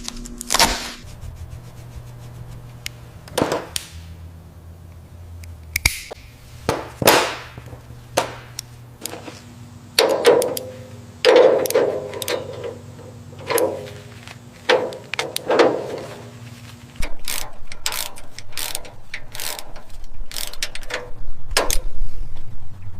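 A run of workshop tool and metal sounds: ratchet clicks, clanks and knocks, with a few swishes in between, over a low steady hum. The knocks come thickest about halfway through.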